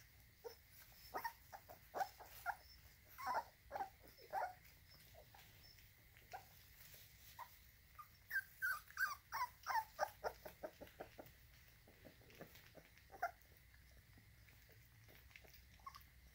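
Three-and-a-half-week-old American Bully puppies whimpering in short, squeaky cries, in two spells with a single cry later. Crickets chirp faintly throughout.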